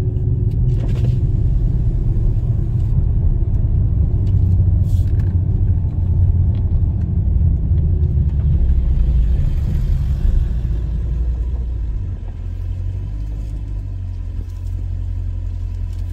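Car engine rumbling at low speed, heard from inside the cabin, easing off and getting quieter about twelve seconds in as the car slows.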